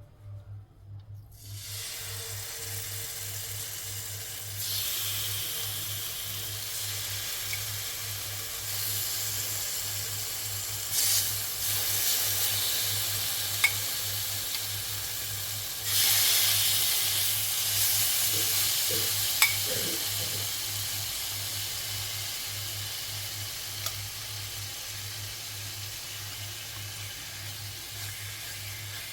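Seasoned chicken sizzling as it fries in a pan, the sizzle starting about a second and a half in and surging louder a few times. A couple of light clicks.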